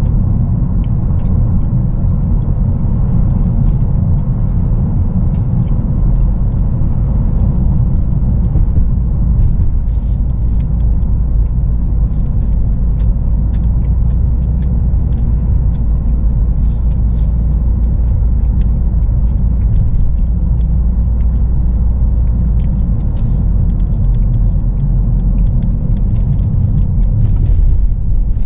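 Steady road and engine rumble inside a moving Ford Focus's cabin, with faint light ticks and rattles scattered through it.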